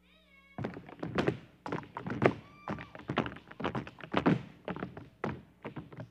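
Tap shoes striking the stage floor in quick, rhythmic clusters of sharp clicks, with little or no music under them.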